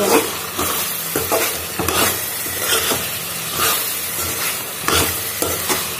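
Chicken fry sizzling in a metal pan while a steel spoon stirs it. The spoon scrapes and knocks against the pan about once a second.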